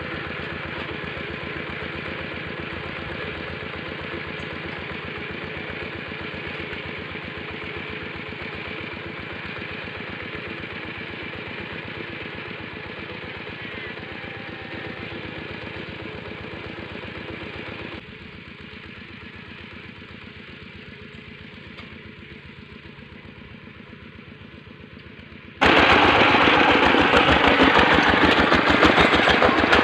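Single-cylinder diesel engine of a two-wheel walking tractor running steadily, heard from a distance. About 26 seconds in it suddenly becomes much louder, heard from right beside the tractor.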